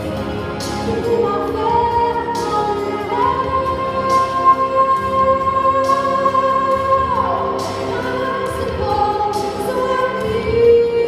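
A female solo singer singing a slow ballad over instrumental accompaniment, holding one long high note for about four seconds before sliding down from it.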